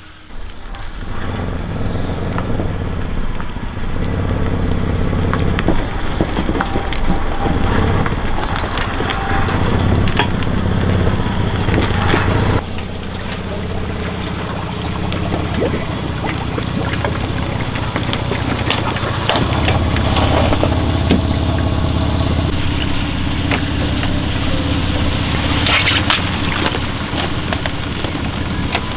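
Steady engine hum with crunching and cracking of thin ice as a jon boat is launched off its trailer into the lake.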